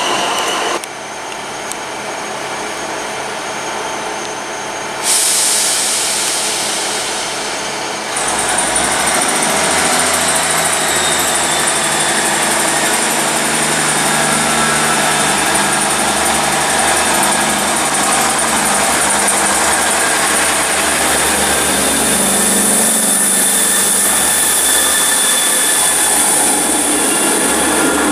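Diesel engines of a Class 158 diesel multiple unit running at the platform, the sound changing abruptly a few times in the first seconds, then steady from about eight seconds in. Later the engine note rises a little as the train throttles up and pulls away.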